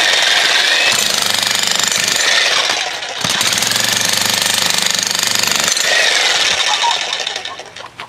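Xtreme Power 2200-watt electric demolition hammer (jackhammer) with a chisel bit hammering into concrete, a rapid steady pounding. It breaks off briefly about three seconds in, starts again, then winds down and stops near the end.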